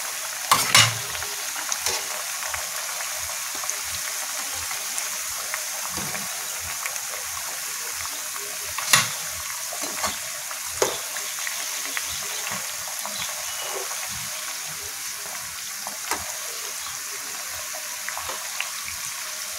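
Ragi-battered banana fritters (pazham pori) deep-frying in hot oil with a steady sizzle. A few sharp clicks of a metal slotted spatula against the pan, the loudest about a second in and a couple more around the middle.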